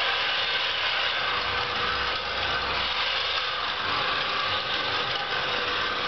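A small homemade robot vacuum cleaner's motors running steadily: an even whirring noise with a faint steady hum underneath.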